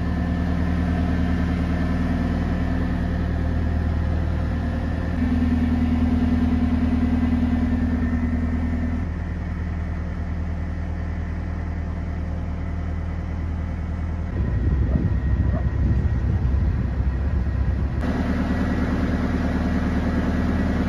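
Narrowboat engine running steadily while the boat is under way. Its pitch and level shift a few times, and there is a rougher, uneven stretch about two-thirds of the way through.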